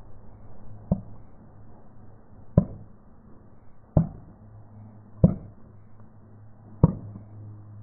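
Plastic toothpaste tubes bursting one by one under a slowly rolling car tyre: five sharp pops, roughly one every one and a half seconds, over a low steady hum.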